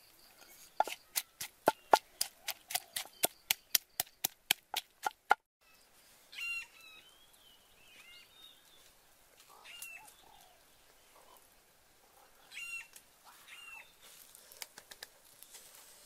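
A wooden pestle pounding shallots and garlic in a clay mortar: sharp, even strikes about three a second, stopping abruptly about five seconds in. Then a few short bird calls at intervals.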